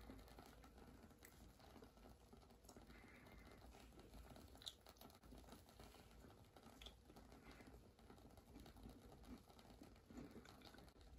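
Near silence: room tone with a few faint small clicks.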